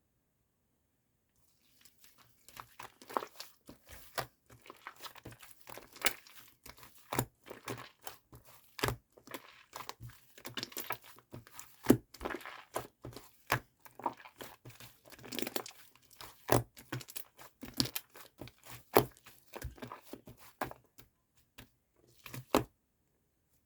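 Slime laid over fluffy shaving foam being squeezed and pressed by hand, giving a dense run of sharp pops and crackles. It starts about two seconds in and stops shortly before the end.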